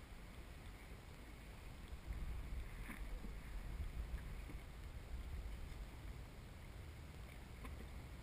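Jet ski on the sea: a low, muffled rumble with wind and water noise, no clear engine pitch.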